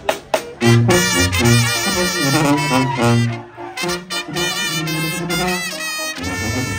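Brass band music: a few sharp drum strikes, then about half a second in the horns come in with a melody over a low brass bass line.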